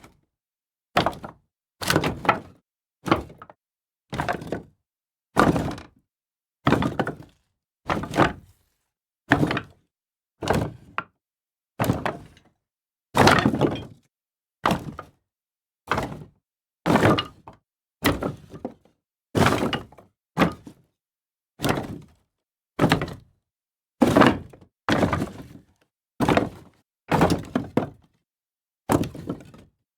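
Pieces of wood tossed down one at a time: a run of about twenty separate hollow knocks, roughly one a second, some with a quick second bounce.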